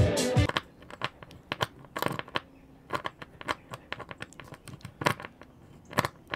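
Irregular sharp clicks and taps of a small screwdriver working at screws in a ceiling panel.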